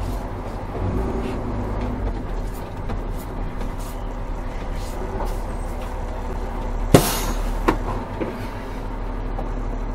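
Fire engine's diesel engine running, heard from inside the cab as the truck moves forward, a steady low drone. A sharp click comes about seven seconds in, with a smaller one just after.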